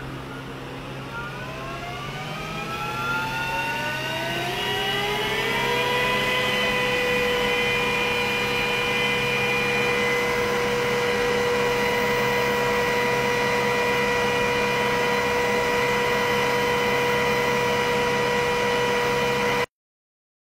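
Glowforge laser cutter's fans spinning up, a rising whine over the first five seconds or so, then running at a steady pitch while the machine works. The sound cuts out suddenly for about a second near the end.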